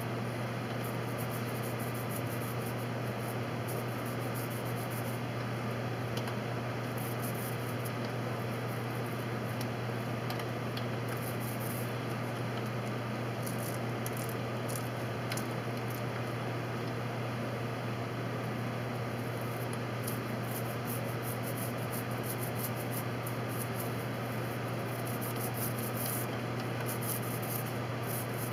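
Paint roller spreading white paint over boat planking, a sticky crackling swish that comes and goes and is busiest in the last third, over a steady low hum.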